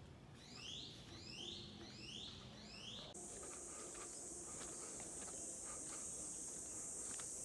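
Wild animal calls: a run of short sweeping calls repeating about every two-thirds of a second, cut off abruptly about three seconds in by a steady high-pitched insect buzz with scattered clicks.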